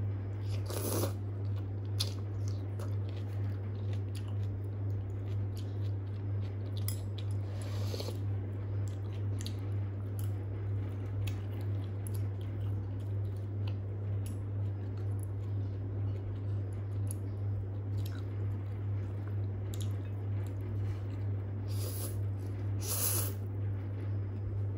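A steady low hum, with a few brief soft eating sounds as noodles are picked up with chopsticks and a spoon and eaten: about a second in, around eight seconds in, and near the end.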